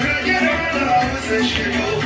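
Music playing steadily, with no speech over it.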